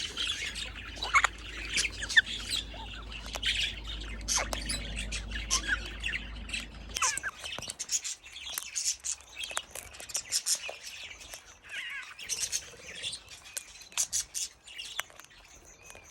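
Aviary birds calling continuously: many short chirps and tweets mixed with harsh squawks.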